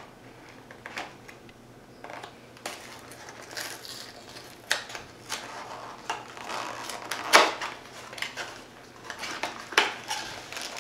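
A cardboard box of cream cookies being opened by hand: irregular clicks, taps and crinkling of cardboard and wrapper, with one louder rustle about seven seconds in.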